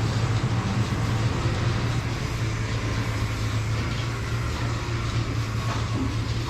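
Farm machinery running steadily in a dairy barn: a constant low hum with a steady hiss above it.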